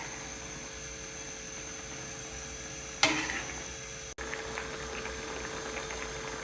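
Food frying in a pan: a steady sizzling hiss, with one sharp clank of a utensil about three seconds in and a busier crackle near the end.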